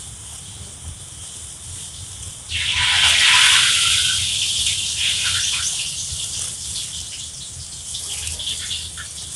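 Thin clear plastic bag crinkling and rustling as it is handled and drawn down over a freshly grafted durian seedling to cover the graft. It starts loud about two and a half seconds in and goes on more softly after that.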